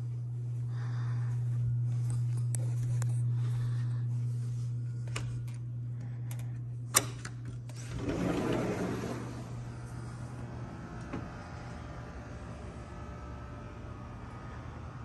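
A steady low hum, broken by a sharp click about seven seconds in; a second later a sliding glass door slides open along its track, and the hum fades into a quieter steady background.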